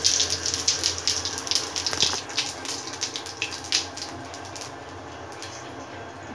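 Cumin seeds and a bay leaf sizzling and crackling in hot oil in a kadhai, the spitting dying down to a faint hiss after about four seconds.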